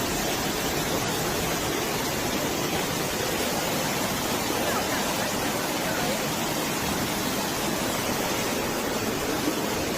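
Floodwater rushing: a steady, even roar of water with no change in level.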